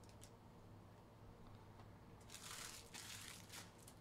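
Foil trading-card pack wrappers crinkling as packs are handled: a faint crinkle near the start, then a longer bout of crinkling from about two seconds in.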